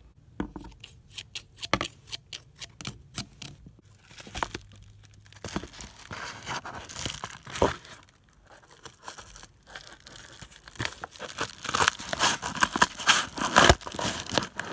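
A yellow padded paper mailer being cut and torn open. A run of quick, crisp ticks fills the first few seconds, then the paper rustles and crinkles, with louder tearing near the end.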